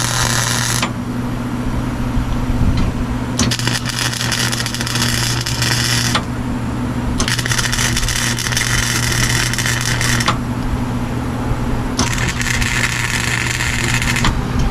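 MIG welder laying short welds on a sheet-metal body seam: crackling bursts of about three seconds each, three full ones after a first that stops about a second in, over a steady low hum.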